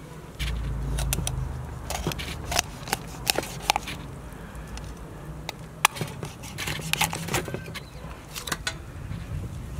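Scattered clicks, taps and knocks of a large kitchen knife being taken out of its box and handled, then the knife cutting into a whole raw chicken on a wooden cutting board. A short low rumble comes about half a second in.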